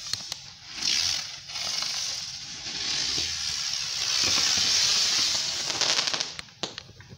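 Consumer firework spraying with a loud, steady hiss for about five seconds. It crackles sharply near the end, then stops about six seconds in.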